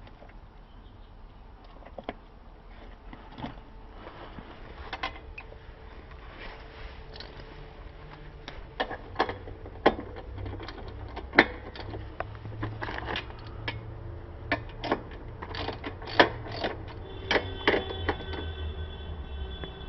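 Irregular metallic clicks, knocks and clinks of hand tools and metal parts being handled during work on a motorcycle's rear wheel. The clicks become louder and more frequent partway through.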